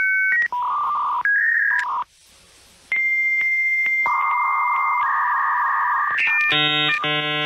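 Electronic beeps and held synthesized tones that step between pitches, ending in a buzzy, lower tone rich in overtones.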